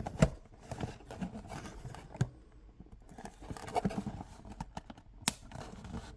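Small plastic model-kit parts being handled and pressed into place: scattered light clicks and taps, with one sharper click about five seconds in.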